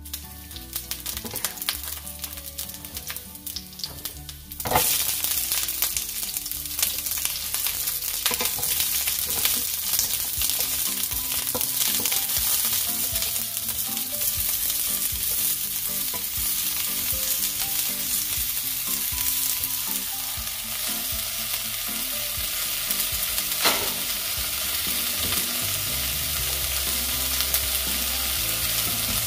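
Chopped garlic and asparagus spears sizzling in hot oil in a frying pan, stirred with a wooden spatula. The sizzle turns suddenly louder about five seconds in and then runs steady, with small knocks from the stirring.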